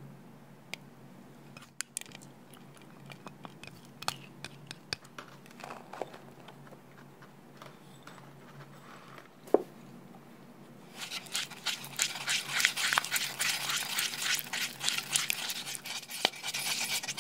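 A few soft taps and clicks as ingredients go into a wooden bowl, then, from about eleven seconds in, rapid continuous scraping and rubbing as a utensil mixes a runny batter against the wooden bowl.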